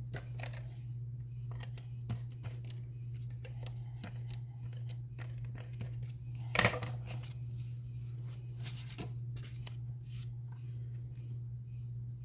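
Paper and cardstock being handled while a card is assembled: scattered small clicks and rustles, with one louder crinkle or snap about six and a half seconds in, over a steady low hum.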